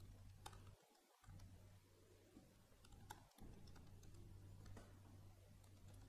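Near silence: a few faint, scattered clicks over a low, steady hum.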